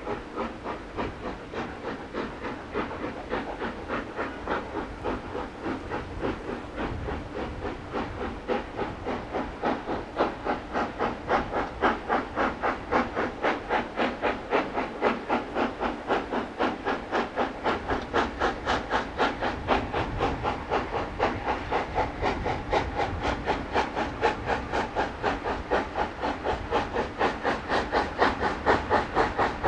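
Steam locomotive exhaust beating in a rapid, even rhythm as LMS Royal Scot class 4-6-0 no. 46100 works a train toward the listener, the chuffing growing louder as it approaches.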